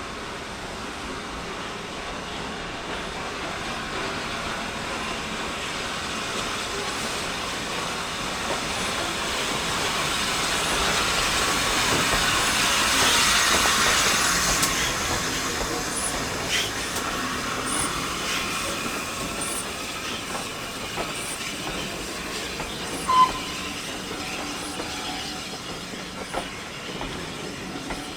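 A train passing, most likely 60163 Tornado's steam-hauled train, rising to its loudest about halfway and then fading away. As it recedes there are clicks of wheels over rail joints and one short, sharp squeak.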